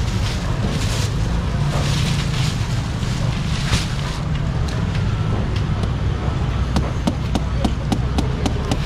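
Outdoor market background with a steady low rumble. In the last two seconds or so, a run of sharp plastic clicks and taps as small plastic baskets are handled and stacked on the table.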